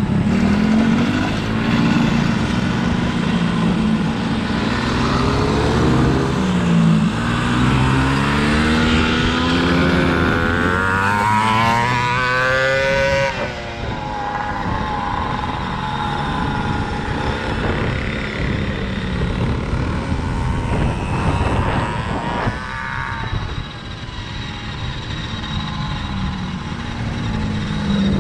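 Small off-road engine running on a dirt track, revving up and down over and over, with a long rising rev just before the middle, then running quieter.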